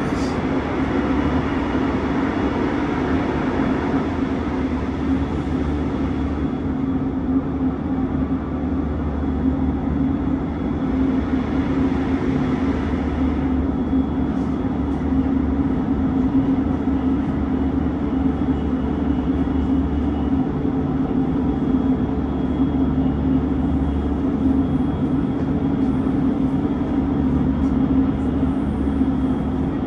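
Electric commuter train heard from inside the passenger car while running at speed: a steady rolling rumble with a constant running hum.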